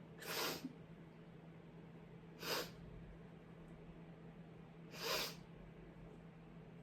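Three short, sharp sniffs through a congested nose, about two and a half seconds apart, from a person with a cold.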